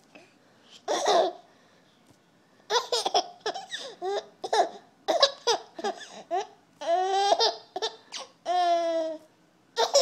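Baby giggling: one short burst about a second in, then a run of quick giggles, and two longer drawn-out laughs near the end, the last one falling in pitch.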